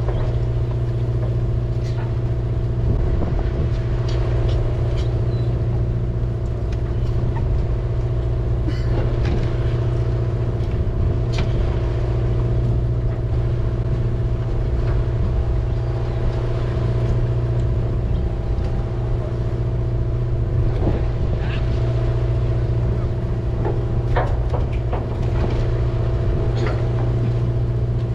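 Fishing boat's engine running with a steady, even drone, with scattered small clicks and knocks on top.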